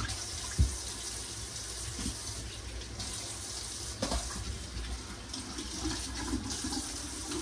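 Kitchen faucet running steadily as raw chicken breasts are rinsed under cold water by hand. There are a couple of brief knocks, the loudest just under a second in and another about four seconds in.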